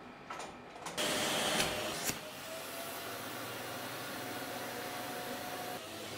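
Shop vac sucking air: a loud rush of air starts about a second in, then after a sharp click as the hose nozzle seats on the vacuum-press bag's valve it settles into a steadier hum with a faint whine creeping up in pitch while it draws the air out of the veneer bag.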